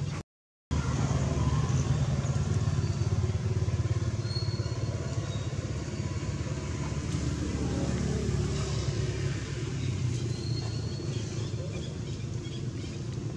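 Steady low rumble, like a motor running or wind on the microphone, cut off by a short dropout to silence just after the start. Two faint, brief high-pitched squeaks come through, one about four seconds in and one near the end.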